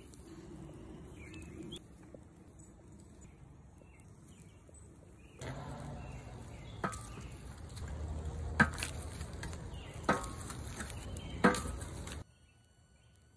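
Lobsters sizzling and crackling on hot lump charcoal, getting louder about five seconds in. Four sharp clacks come about a second and a half apart as the shells are handled on the coals. The sound cuts off suddenly about a second before the end.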